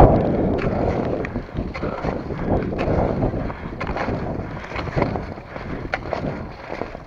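Cross-country skis skating over packed snow: a steady scraping swish with sharp clicks of the poles planting every half second or so. Wind buffets the microphone.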